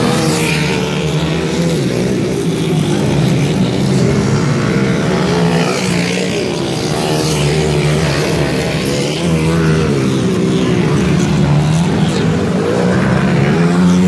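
Dirt bike engines revving hard as the bikes pass close by one after another on a dirt track, the pitch rising and falling as the riders accelerate and back off.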